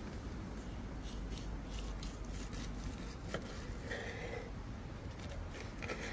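Chef's knife slicing through a seared tomahawk steak on a wooden cutting board: a series of short, soft scraping strokes as the blade saws through the charred crust, over a low steady background rumble.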